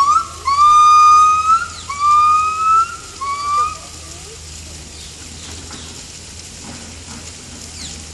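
Yellow-cheeked gibbons (Nomascus gabriellae) singing: a series of loud whistled notes, each held level and rising at the end, about four in the first four seconds, getting shorter and fainter before the song breaks off.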